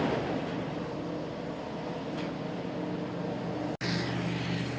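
Heavy mining excavator's diesel engine running steadily, a low even hum with machine noise over it. It cuts out for an instant about four seconds in and resumes unchanged.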